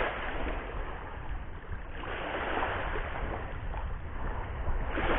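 Steady rush of surf and wind at the shoreline, a little louder from about two seconds in.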